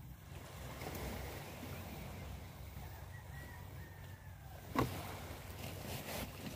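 Shoreline ambience of low wind rumble and faint sea wash, with the light rustle of a nylon gill net being handled. A single sharp knock comes a little under five seconds in, with a couple of fainter clicks near the end.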